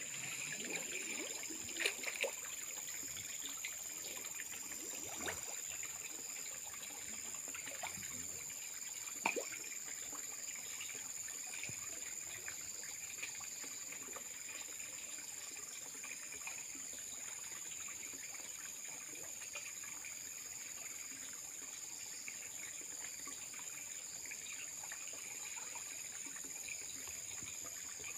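Muddy pond water sloshing and splashing around a man wading waist-deep and sweeping a landing net through it, with a few sharper splashes in the first ten seconds.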